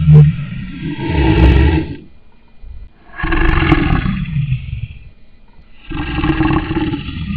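Lion roaring: a series of deep, loud roars, each about two seconds long, with a pause of about a second between them.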